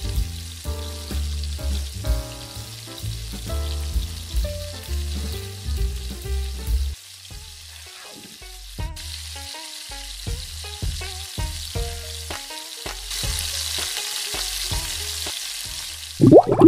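Chả cá fish frying with dill in a hot pan: a steady sizzling hiss, louder near the end, under background music with a melody and bass notes that thin out about halfway through. Just before the end a loud sweeping tone cuts in.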